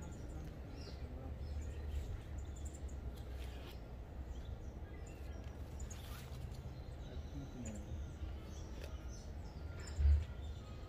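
Outdoor ambience: faint, scattered chirps of small birds over a steady low rumble, with one brief low thump near the end.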